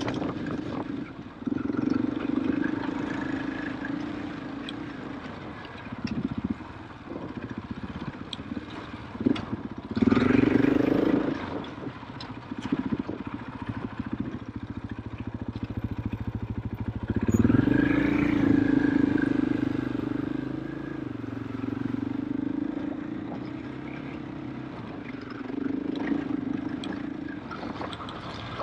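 KTM 500 EXC-F single-cylinder four-stroke enduro engine running under way, rising in pitch and loudness as the throttle opens, most strongly about ten seconds in and again about seventeen seconds in, between steadier stretches.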